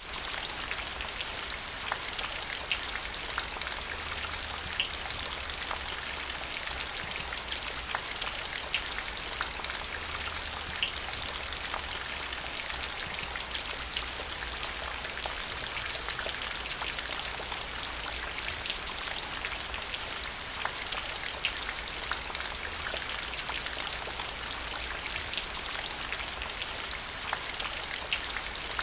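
Steady rain falling on wet paving stones and a shallow puddle: an even hiss with scattered sharper drop taps.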